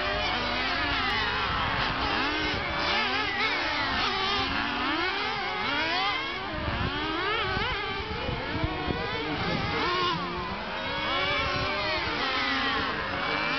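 Several radio-controlled model touring cars racing, their small motors revving up and down in overlapping high-pitched whines as they accelerate out of and brake into the corners.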